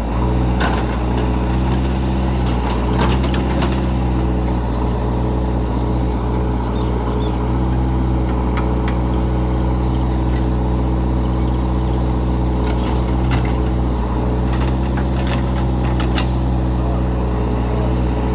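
Heavy diesel engine running steadily at an even speed, with a few sharp clanks and knocks from the machinery.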